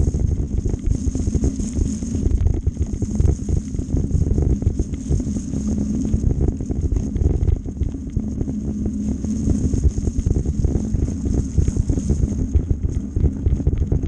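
Mountain bike riding over a wet, rough gravel and mud track: tyres rumbling and the bike rattling over bumps, with wind buffeting the helmet-mounted camera's microphone.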